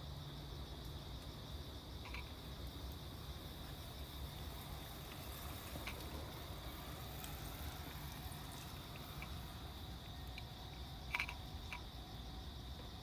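Steady high trilling of crickets at night, with a few small clicks of a cat eating from a dish; the sharpest click comes about eleven seconds in.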